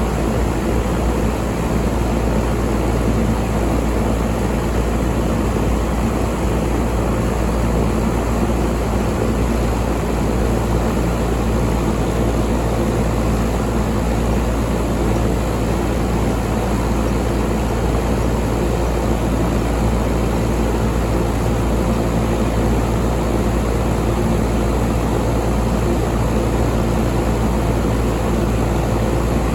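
York 5-ton air conditioner running steadily: an even rush of air over a low, constant hum.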